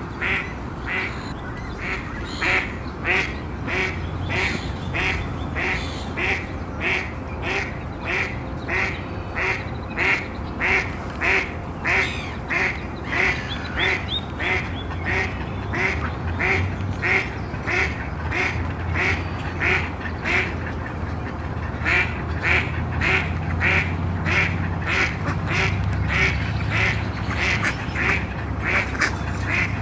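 Mallards quacking in a long, steady run of calls, about two a second, with a short break about two-thirds of the way through. A low rumble runs underneath.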